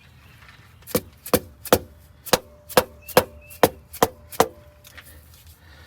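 Cylinder liner being tapped down into a Detroit Diesel 8V92TA block: nine sharp, evenly paced taps, two or three a second, some with a short ring. The taps drive the liner's last bit past its new sealing O-rings.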